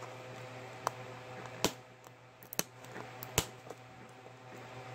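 Fingers and fingernails clicking and scraping on a hard plastic surprise ball capsule as it is pried at to open it. There are a few sharp, separate clicks, the loudest about a second and a half and three and a half seconds in, over a steady low hum.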